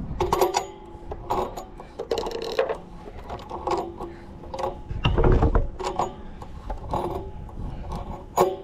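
Irregular metallic clicks and clanks, several followed by a brief ringing tone, with a heavier low thud about five seconds in: hands working with tools and metal parts.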